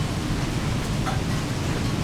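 Rain falling steadily in a thunderstorm, an even rushing noise.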